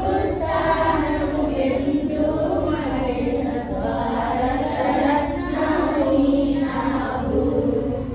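A group of voices singing a song together in unison, with a chant-like melody.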